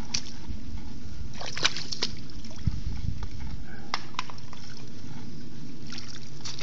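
Muddy creek water sloshing and splashing around a quad bike stuck axle-deep, with scattered small knocks and clicks over a low rumble that eases off about four seconds in.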